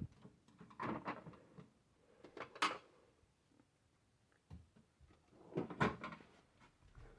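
Plastic parts of a Nerf N-Strike Tech Target being handled during a teardown, knocking, clicking and scraping in several short bursts.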